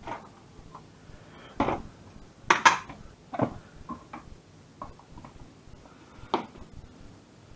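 Kitchen handling clatter: a plastic tub and a kitchen knife knocking on a plastic chopping board as diced raw pork is pushed off the board into the tub. A string of separate sharp knocks, the loudest cluster about two and a half seconds in and a last single knock near the end.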